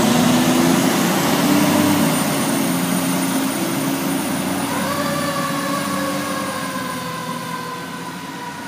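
Fire truck's diesel engine running under load as it pulls away and fades into the distance. About five seconds in, its siren starts, winding up in pitch and then slowly sliding lower.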